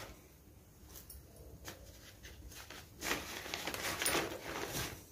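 Items and their packaging being handled: a few faint clicks, then plastic packaging rustling and crinkling from about three seconds in.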